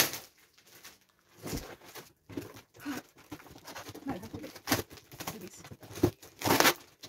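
A knife cutting through plastic wrapping and packing tape on a cardboard parcel, which is then pulled open: irregular crinkling and rustling with a few sharper crackles.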